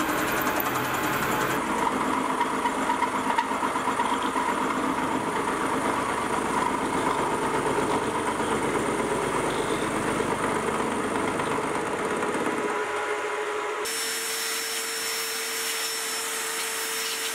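Mini vertical mill cutting T-slots in a steel block, the spindle running under a rough, steady cutting noise. About fourteen seconds in it gives way to a shop vacuum's steady whine and hiss as the chips are sucked up.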